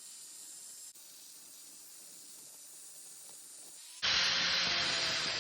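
A faint steady hiss, then about four seconds in a loud, dense grinding noise cuts in suddenly: an angle grinder with a flap disc grinding wood.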